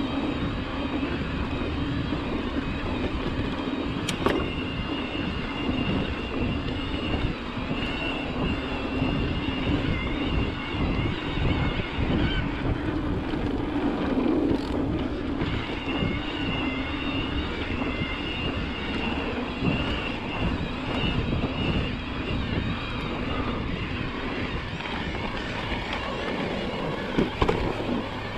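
Electric mountain bike ridden along a dirt trail: wind on the microphone, tyres and frame rattling over the ground, and a thin high whine from the e-bike's drive motor that drops out for a few seconds near the middle. A couple of sharp knocks from the bike hitting bumps stand out.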